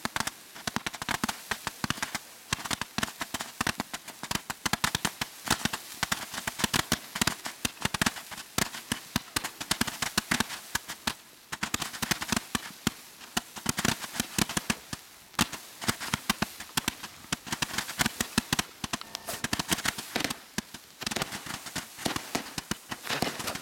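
Firework battery firing, a dense rapid run of sharp cracks and pops, with short lulls about 11 and 21 seconds in.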